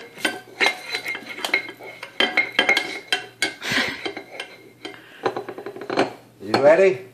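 A metal spoon clinking and scraping in a small nonstick saucepan of rice, in quick irregular taps as a toddler stirs and scoops. A short voice sounds near the end.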